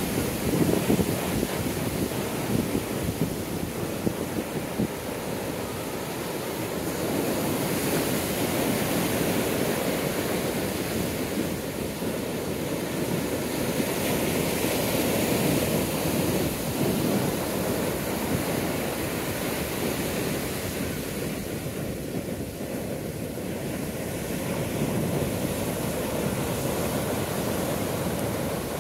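Atlantic ocean surf breaking and washing up the sand, a continuous rush that swells and eases every several seconds as each wave comes in.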